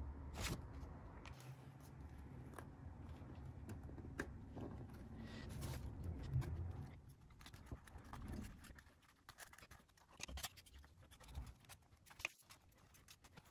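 Scattered light clicks, taps and scratches from hands handling a laser-cut wooden Ferris wheel model and setting it on a desk, with a low handling rumble in the first half.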